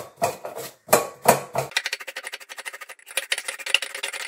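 Peeled zucchini being grated on a metal box grater: rasping strokes about three a second, quickening about two seconds in to a fast run of short scraping strokes.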